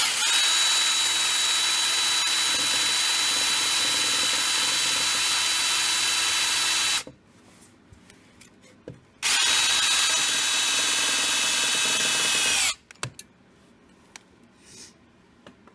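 Power drill running at a steady speed as it drives a long screw into an old crankshaft oil seal, so that the leaking seal can be pulled out. It runs once for about seven seconds, pauses with a few light clicks, then runs again for about three and a half seconds and stops abruptly.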